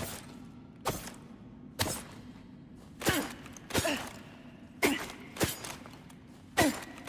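Tactical knife being worked for a sound effect: a series of about eight sharp clicks, spaced roughly a second apart and uneven, several trailing off in a short falling tone.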